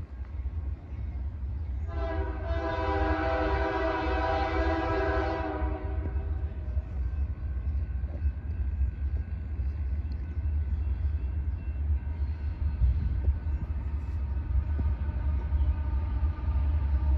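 Air horn of an approaching Union Pacific diesel freight locomotive heard at a distance: one long blast of about four seconds, starting about two seconds in, and the next blast beginning right at the end. A steady low rumble runs underneath.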